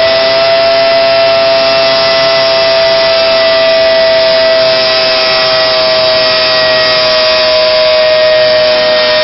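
Portable pipe beveling machine running in a steel pipe end, its motor giving a loud, steady whine while the rotating cutter head machines the pipe rim. The whine drifts slightly lower toward the end, as if under a little more cutting load.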